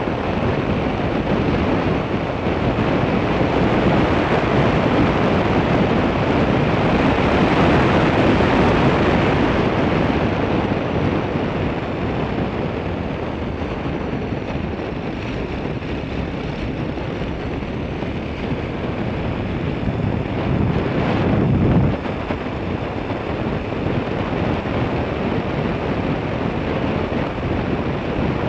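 Wind rushing over the microphone of a camera moving fast along a road: a steady, loud noise with no engine tone in it. It swells during the first third, rises again briefly about three-quarters through, and then drops off suddenly.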